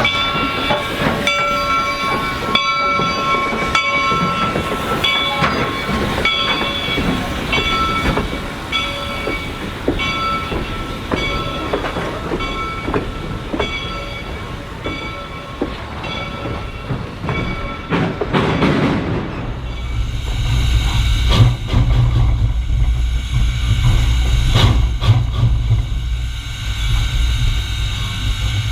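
Reading & Northern 425 steam locomotive and its passenger train on the move, with a repeating rhythm of short ringing beats, about three every two seconds. About two-thirds of the way through, this gives way to a steady low hum.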